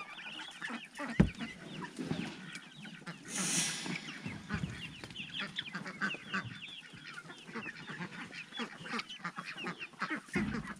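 Farmyard poultry clucking and calling in a rapid, overlapping chatter. There is a sharp knock about a second in, a brief rush of noise halfway through, and a low thump near the end.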